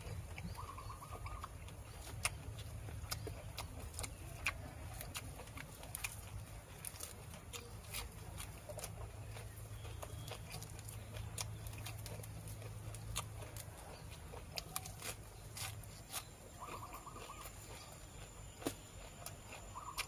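A person chewing a mouthful of seafood papaya salad and raw vegetables, with scattered soft crunches and mouth clicks over a low steady rumble. A short high trill sounds twice in the background.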